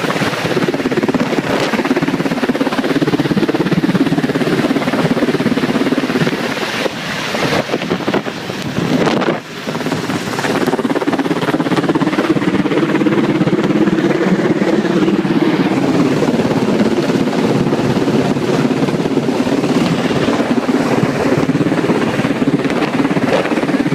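Helicopter flying low and close, its rotor and engine noise running steadily, with wind buffeting the microphone. The sound dips briefly about nine seconds in.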